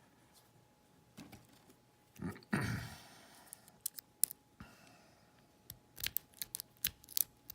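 Small snake rake scraping and clicking against the wafers of a Corbin wafer cabinet lock as it is raked: a louder scrape about two and a half seconds in, then irregular sharp metallic clicks, several a second. The lock has not opened yet.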